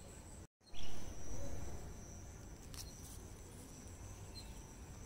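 Insects chirring steadily in a high, even tone over a low outdoor rumble. About half a second in the sound breaks off for a moment, then a louder noise swells and fades over the next second.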